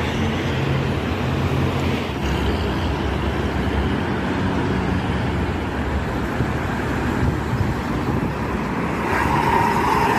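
Highway traffic passing at speed, mostly buses and trucks: steady engine and tyre noise, with a brief higher tone about nine seconds in.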